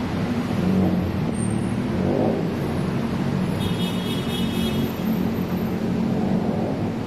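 Busy city road traffic: a steady drone of running engines and tyres, with a vehicle revving up about two seconds in and a brief high-pitched whine a little before the middle.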